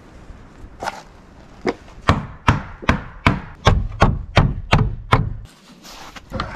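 Hammer striking a wooden pallet board repeatedly, about a dozen sharp blows coming two to three a second and quickening slightly, as a board is knocked loose from the pallet.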